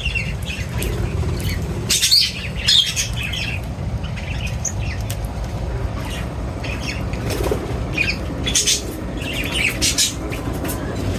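Several birds feeding, chirping and squawking in short, repeated calls, loudest about two seconds in and again near the end, over a steady low rumble.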